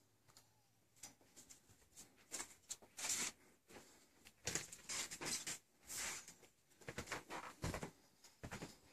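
Footsteps and rustling as a person walks through rooms holding the phone: irregular soft scuffs, sparse at first and more frequent from about three seconds in, with a couple of low thumps near the end.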